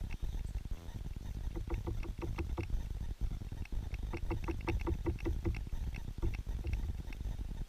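Short, quick pitched calls from a bird, in two rapid runs, over a steady low rumble.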